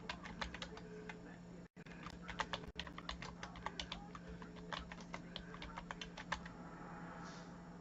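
Typing on a computer keyboard: a run of quick, irregular key clicks, as team names are entered into a list randomizer.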